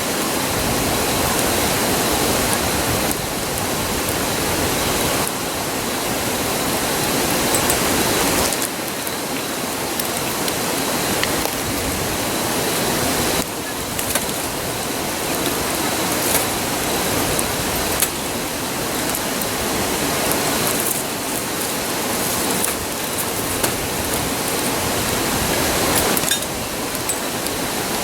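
Steady rushing of a river, with scattered small pops and crackles from a wood campfire.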